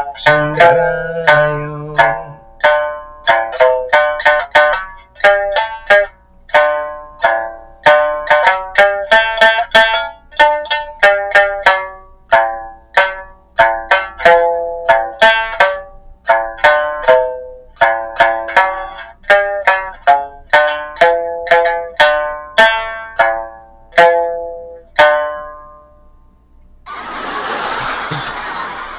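Okinawan sanshin plucked, with a man singing along for the first two seconds. Then comes an instrumental passage of quick single plucked notes, each ringing briefly, which stops about 25 seconds in. A short burst of hissy noise follows near the end.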